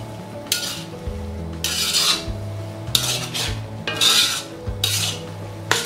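Metal spatula stirring and scraping wet fried noodles around a wok, about one scraping stroke a second.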